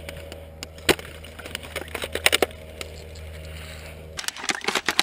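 Scattered sharp clicks and knocks on wood: one about a second in, a quick cluster around two seconds in, and another cluster near the end. A steady low hum underneath stops shortly before the end.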